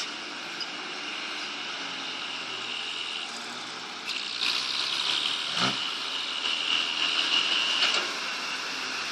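Excavator digging under load: steady engine noise with a high whine, growing louder about four seconds in, and a sharp metallic clank a little later. The machine is low-powered, so it sounds a bit rough, as the uploader puts it.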